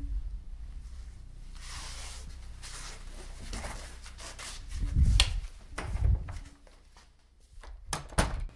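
Footsteps and movement in a small room: two heavy thumps about five and six seconds in, then two sharp clicks close together near the end.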